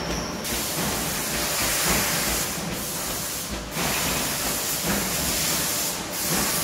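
Roller seam welding machine at work, giving a steady harsh hiss that runs on with only brief dips.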